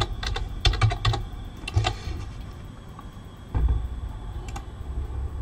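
Typing on a computer keyboard: a quick run of keystrokes in the first second or so and a couple more just before two seconds, then a dull thump about three and a half seconds in and a few faint scattered clicks.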